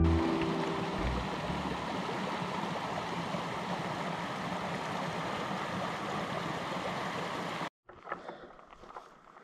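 A stream rushing steadily, its even wash of water noise cutting off abruptly near the end.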